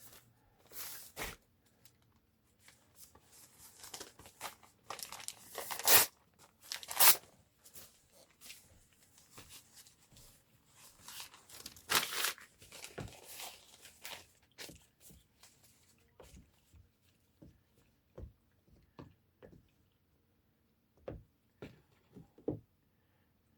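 Newspaper being torn into strips by hand, in irregular rips with crinkling and rustling of the paper. The loudest rips come about six, seven and twelve seconds in, followed by fainter scattered rustles and ticks.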